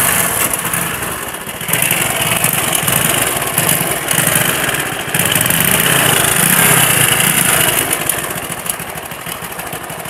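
TVS XL100 moped's small single-cylinder four-stroke engine catching and running, with a loud fine mechanical rattle over the engine note. The revs rise a little about two seconds in and again around five seconds, then ease back near the end. The mechanic calls the noise too much and traces it to a worn, slack timing chain, with low oil not reaching the cylinder head.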